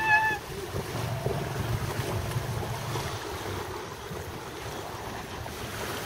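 Rain and strong wind, with wind rumbling on the microphone.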